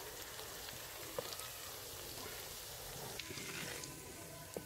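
Hot ghee sizzling faintly in a clay cooking pot around a few leftover bits of fried bitter gourd, an even hiss with scattered small crackles.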